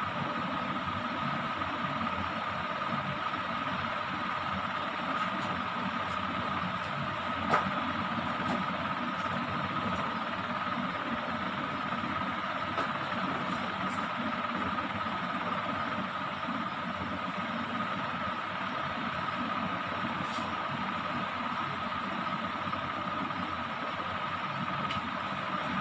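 A steady mechanical hum with a thin, unchanging whine, like a motor running, and a single short click about seven and a half seconds in.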